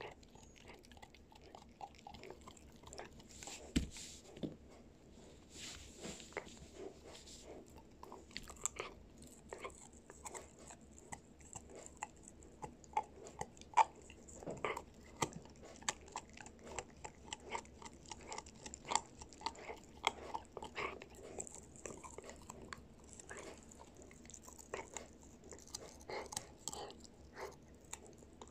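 White shepherd puppy chewing a dried beef Achilles tendon, with irregular crunching and gnawing clicks as its teeth work the hard chew.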